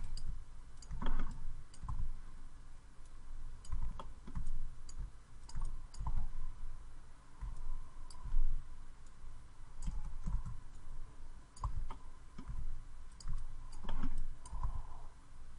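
Irregular clicks of a computer mouse, about one or two a second, with soft low thumps between them.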